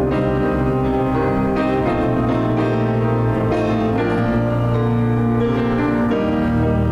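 Instrumental music led by piano, sustained notes and chords over a held bass line.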